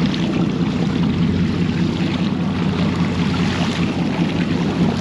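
A sportfishing boat's inboard engine running steadily in gear, with water rushing and splashing along the hull.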